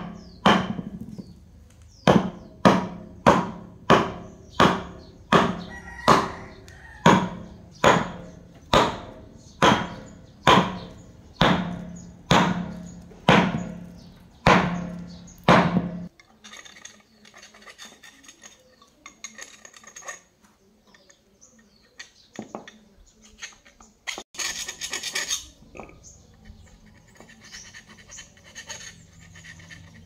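Hammer blows on metal, evenly paced at somewhat under two a second, each with a short ring, stopping suddenly about halfway through. Quieter scraping and handling noises follow, with one brief louder rasp in the second half.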